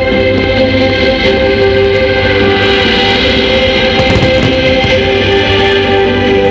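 Music with long held chords whose notes change every second or two.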